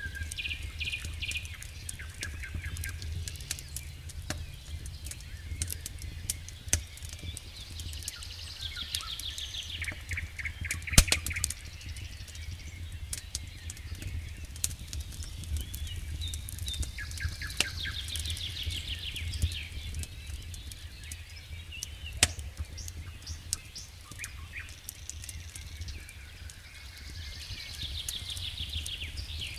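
Wood campfire crackling with scattered sharp pops, the loudest about 11 seconds in and another about 22 seconds in. A bird sings a short trilled phrase every eight or nine seconds over a steady low rumble.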